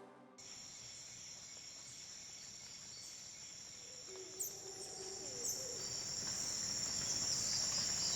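Crickets chirping in a steady high-pitched trill, a night ambience that grows slowly louder, with a couple of short falling chirps about halfway through.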